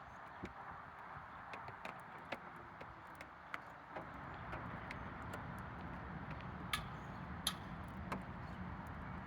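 Quiet outdoor ambience: a steady low hum of distant traffic with scattered sharp clicks, two of them louder near the end.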